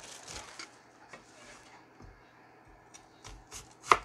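Kitchen cleaver slicing an onion on a plastic cutting board: a few light taps and handling knocks, then one sharp, loud chop of the blade onto the board near the end.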